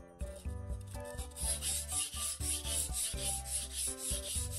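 Kitchen knife blade stroked back and forth on a water-wetted whetstone: a rhythmic scraping of about two and a half strokes a second, starting about a second in.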